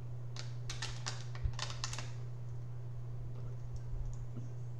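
Thin plastic water bottle crinkling and crackling as it is drunk from, in a cluster of sharp crackles over the first two seconds, over a steady low hum.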